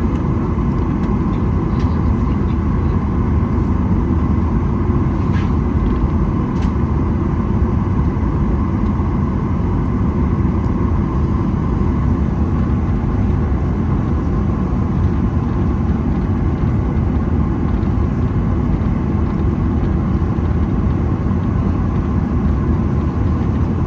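Steady jet engine and airflow noise heard inside the cabin of a Boeing 737-900ER with its CFM56-7B engines running. It is a dense, even rumble with a constant hum on top that neither rises nor falls.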